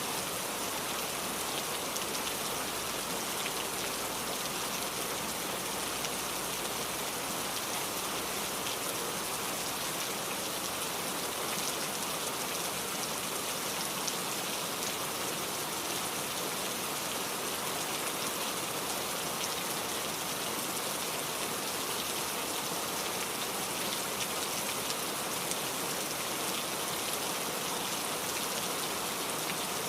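Steady heavy rain falling and pattering on a surface, a dense even hiss with scattered sharper drop impacts.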